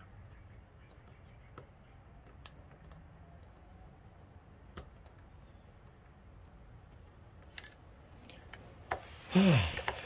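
Faint, scattered metallic clicks of a pick working the pins of a Van Lock push-style padlock. Near the end comes a louder scrape and rattle as the pick is pulled out and the lock handled.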